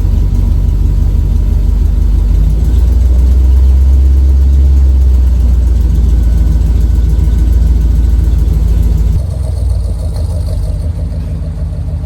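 Old GMC farm truck's engine running, revving up louder a few seconds in as it is put into reverse, then dropping back suddenly to a lighter idle after about nine seconds.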